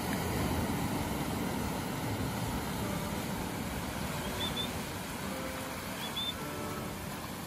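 Ocean surf breaking and washing up over a sandy beach: a steady rushing hiss with a low rumble, with two brief high chirps about halfway through and again near the end.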